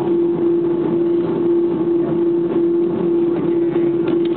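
Airliner engine noise heard inside the passenger cabin during takeoff: a loud, steady rushing hum with one strong unchanging drone-like tone running through it.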